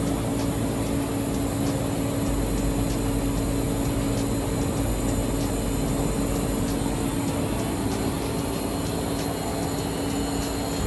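Power tool running steadily while cutting a roll cage tube to its marked notch pattern: a constant hum with a faint high ticking about twice a second.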